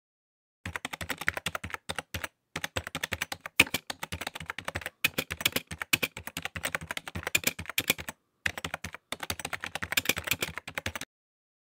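Computer keyboard typing sound effect: a rapid, dense run of key clicks with a few brief pauses. It starts just under a second in and stops about a second before the end.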